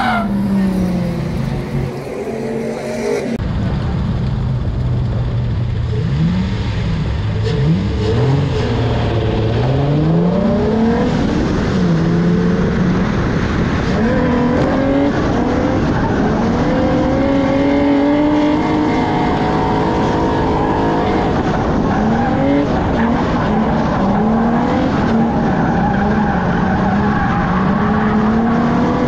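A drift car's engine revving up and down in repeated rising and falling sweeps, with tire squeal beneath it during a drift run. The sound changes abruptly about three seconds in.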